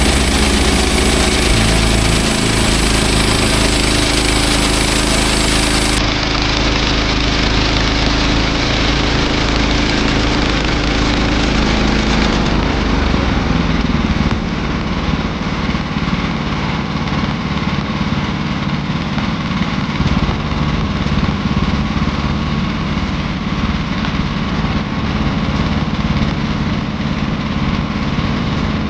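Small gasoline engine of a Woodland Mills HM130 Max bandsaw sawmill running steadily; its sound shifts and drops slightly in level about halfway through.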